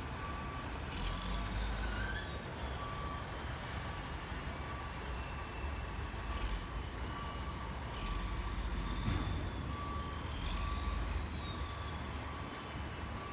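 Reversing alarm on a heavy construction vehicle beeping at a steady, even pace over the low rumble of its diesel engine, with a few sharp metallic knocks.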